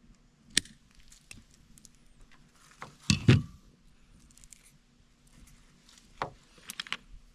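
Handling and trimming 6-gauge copper battery cable with cutters: a few sharp clicks and knocks, the loudest a heavier snip-and-thud about three seconds in, with another knock and a quick run of clicks near the end.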